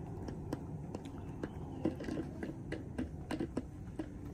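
Chickens pecking at feed on the ground, their beaks striking in quick, irregular taps.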